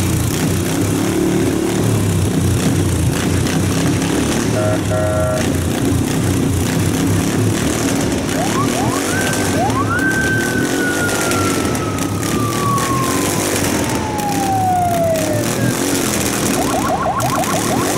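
V-twin motorcycle engine running loudly and steadily. Around the middle a siren winds up three times in quick succession and then falls slowly over several seconds; there is a short horn-like tone about five seconds in and a rapid warbling tone near the end.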